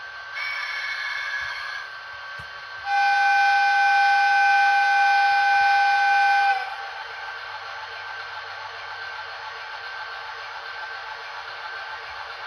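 Electric locomotive whistle sounded twice: a short blast, then a long steady blast of about four seconds at one pitch. A steady, quieter running hum carries on under and after it.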